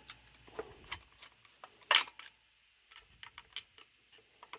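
Small parts of a Thermoquad carburetor clicking and clinking as they are handled and set down during teardown, with a sharper clatter about two seconds in.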